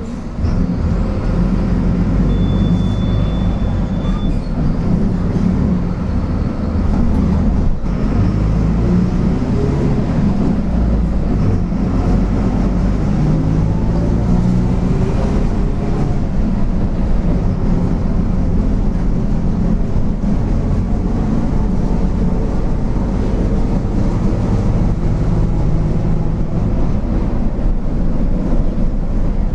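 Mercedes-Benz OF-1722M city bus under way: a loud, steady low drone from the diesel engine and driveshaft, its pitch rising and falling as the bus changes speed. The driveshaft growl is what the recording sets out to capture.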